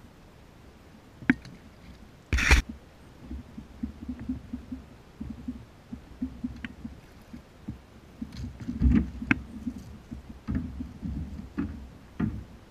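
Handling noise in a fishing kayak: irregular low knocks and thumps as a rod and gear are worked against the plastic hull, with one loud sharp crack about two and a half seconds in.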